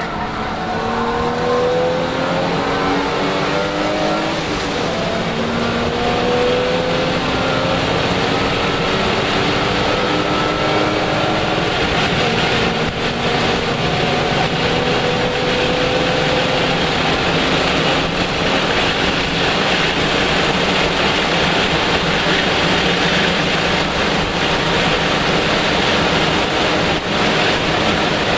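Lexus IS300 race car's 3.0-litre inline-six heard from inside the cabin under hard acceleration. Its pitch climbs in several long pulls through the first half, then it is held at high speed under loud wind and road noise.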